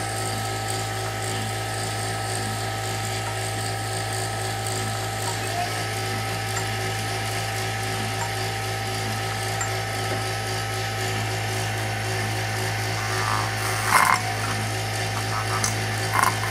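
Two brushless motors spin a pair of Nerf-dart rollers at a steady speed, running with a low hum and a higher whine. About fourteen seconds in there is a short clatter as Nerf darts are pushed through the spinning rollers and flung out, followed by a few more clicks near the end.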